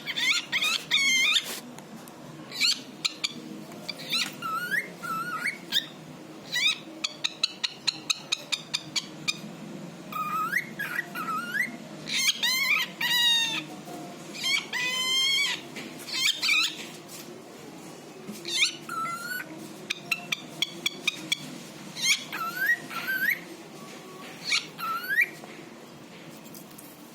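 Pet cockatiel whistling and chattering in short bursts: rising and bending whistle notes, warbling runs and rapid strings of clicks, with short pauses between.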